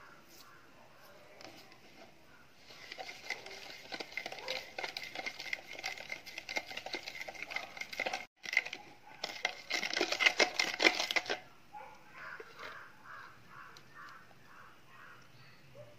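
A spoon scraping and stirring inside a plastic jug of lemon juice and pulp: a dense rattle of small clicks and scrapes in two spells, the second louder, with a very brief break between them.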